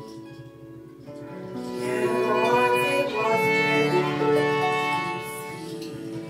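Violin, harp and cello playing a slow instrumental passage together. Soft at first, it swells about a second and a half in, with sliding violin notes, then eases off near the end.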